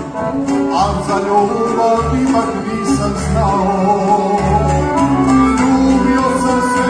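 A man singing a Serbian folk song live into a microphone, backed by a small folk band of violin and accordion playing a steady beat, heard through the hall's sound system.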